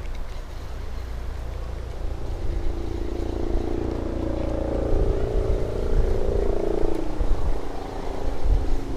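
Wind rumbling on the microphone, with a distant engine's drone swelling and then fading away about two seconds in.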